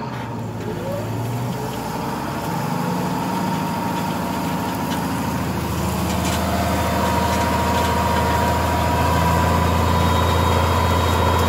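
Tractor's diesel engine pulling a reversible plough through the soil, a steady hum heard from inside the cab, growing gradually louder as it takes up the load.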